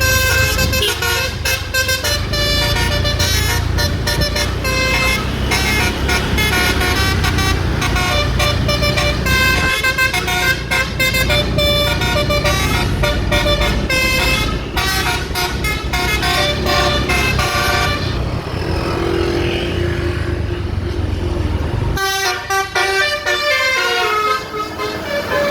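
Telolet basuri bus horn playing a fast melody of stepping notes over a steady low rumble. The notes stop for a few seconds at about 18 s, then start again near 22 s, when the rumble drops away.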